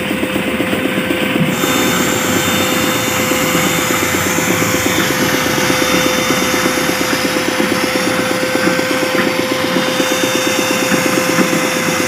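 Air compressor running steadily with a fast, even pulsing. The hiss of a compressor-fed spray gun spraying paint grows stronger about a second and a half in.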